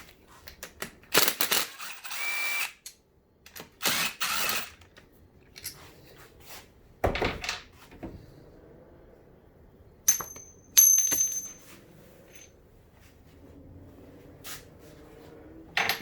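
A handheld power tool with a 10 mm socket runs in several short bursts on bolts. Near the end there is a brief high whine.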